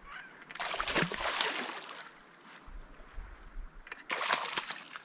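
Hooked smallmouth bass thrashing and splashing at the surface beside the canoe: a long burst of splashing about a second in and a shorter one near the end.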